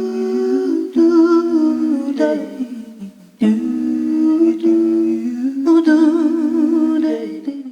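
Wordless female vocal improvisation in two-part harmony: a hummed melody with a second layered voice line above it, in short phrases. The last phrase carries a wavering vibrato, and the voices fade out near the end.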